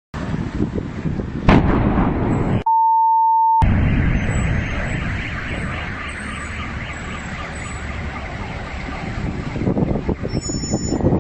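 Explosion: a sharp blast about a second and a half in, followed by a long rumble that fades and swells again near the end. A pure steady beep cuts in for about a second just after the blast.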